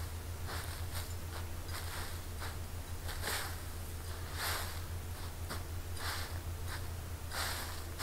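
A shovel digging and scraping through loose soil on a plastic tarp, a short scrape every second or so, over a steady low hum.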